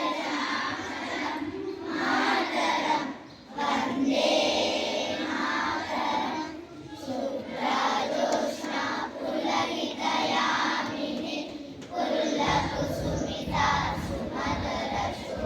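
A group of school children singing a prayer together, in phrases with short breaks. A low rumble joins in for the last few seconds.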